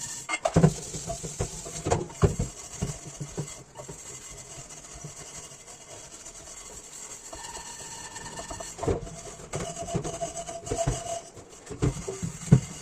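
Dishes being washed by hand: scrubbing and rubbing, with repeated knocks and clinks of crockery and utensils, and a few brief ringing tones.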